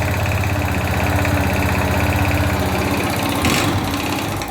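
Yamaha Fazer 250's single-cylinder four-stroke engine idling steadily, a well-worn engine that is burning oil and smoking. This is the engine whose knocking noise at start-up the customer complained of.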